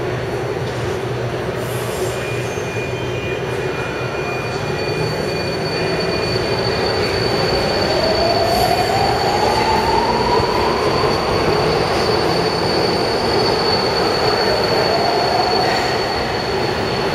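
Budapest M4 metro train (Alstom Metropolis) running through an underground station: a dense rolling rumble with a high steady whistle. A whine rises in pitch from about seven seconds in, and a shorter one follows near the end.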